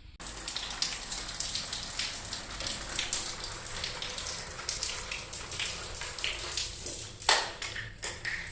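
Water running from a faucet and splashing, starting abruptly as the tap is opened, with a sharp knock near the end.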